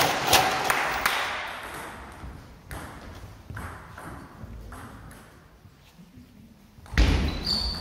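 Celluloid-style table tennis ball ticking a few times, about a second apart, echoing in a sports hall as it is bounced before a serve. A loud sudden burst of noise comes near the end.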